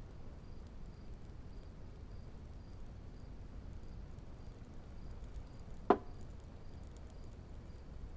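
A small drinking glass set down on a table with one sharp knock about six seconds in, over quiet room tone with a faint, regular high chirping.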